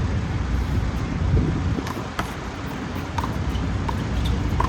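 Steady low rumble of wind on the microphone and street traffic, with two sharp smacks about two seconds in, typical of a handball being struck and hitting the wall. Faint short squeaks follow near the end.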